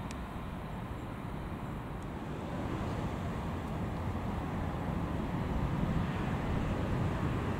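Rumble of a locomotive-hauled double-deck passenger train approaching in the distance, growing steadily louder from about three seconds in, over a steady background of traffic noise.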